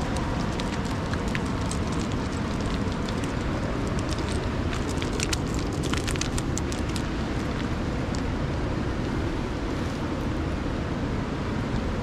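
Rushing river water running steadily, with a run of small crackling splashes from about four to seven seconds in.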